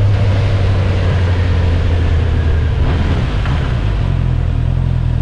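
Honda CB650R's inline-four engine running on its stock exhaust at low revs, with wind and tyre hiss on the wet road. The engine note changes about three and a half seconds in as the bike slows.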